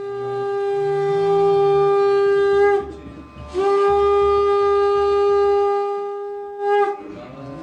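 Conch shell (shankha) blown in two long, steady blasts on one low note, the first swelling up as it starts, the second beginning about three and a half seconds in and cutting off near the end with a brief final swell.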